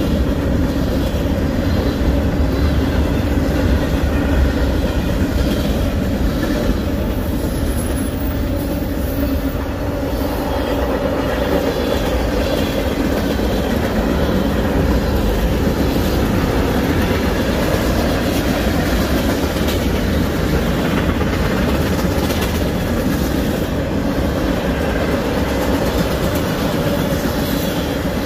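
Freight train cars, covered hoppers and tank cars, rolling past: a steady rumble of steel wheels on the rails.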